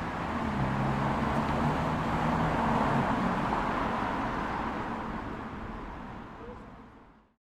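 Urban road traffic: a steady hiss of tyres and engines with a low engine hum, swelling as a vehicle passes about three seconds in, then fading out to silence near the end.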